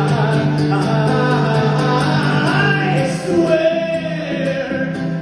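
Solo acoustic guitar strummed steadily while a man sings long held notes over it, played live.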